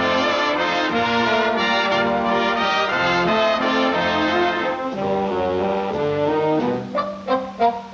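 Brass-led orchestral cartoon score playing full held chords. About seven seconds in it changes to short detached notes, roughly three a second.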